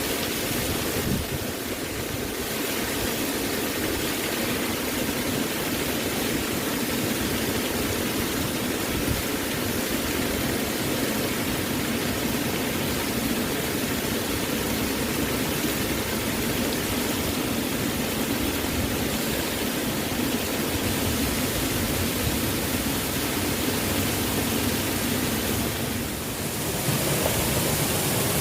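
Waterfall rushing: a steady, even roar of falling water with no breaks, dipping briefly in level near the end.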